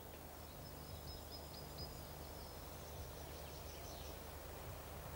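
Faint outdoor ambience: a low steady hum with a series of faint, short, high chirps of small birds from about half a second in until about four seconds in.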